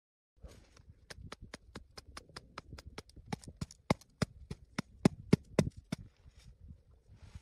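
Snow saw cutting down through a very dense, hard snow slab to isolate a test column. Quick, even rasping strokes, about five a second, start about half a second in and thin out near the end.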